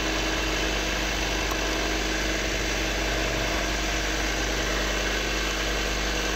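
A cobbler's motor-driven grinding stone running with a steady hum while a shoe's high heel is ground down against it to shorten it.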